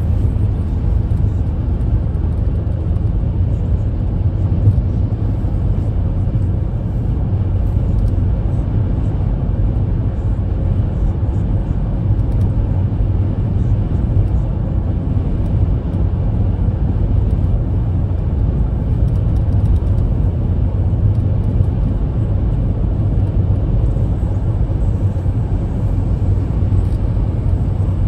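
Car driving on the road: a steady, unbroken rumble of tyres and engine.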